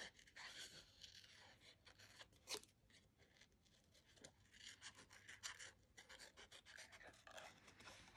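Small craft scissors fussy cutting around a stamped image in white cardstock: a faint run of short snips, with one sharper click about two and a half seconds in.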